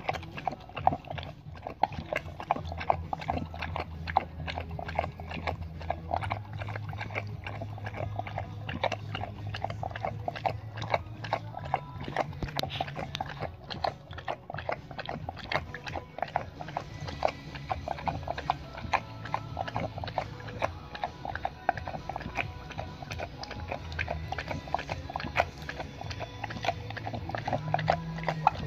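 A dog lapping water and licking peanut butter off a spoon in a stainless steel bowl: quick wet laps, several a second, with a low steady hum underneath.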